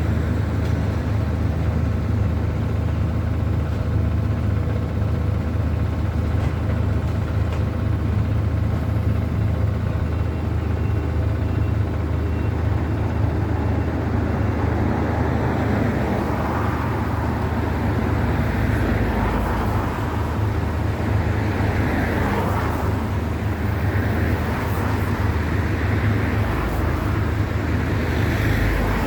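An engine running steadily with a low hum. From about halfway through, a rushing noise swells and fades several times over it.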